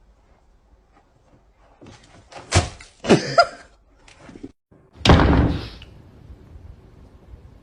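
A few sharp knocks and bangs, then a louder crash about five seconds in.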